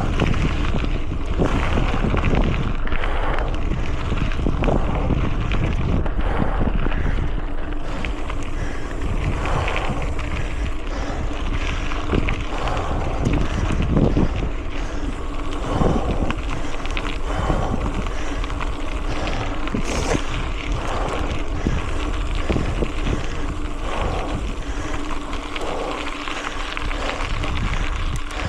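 Wind buffeting the microphone of a bike-mounted action camera while riding a mountain bike, with tyre noise and frequent knocks and rattles from the bike over rough ground.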